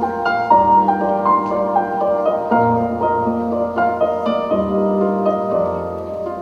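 Instrumental music: a piano melody of short struck notes over a held low bass note.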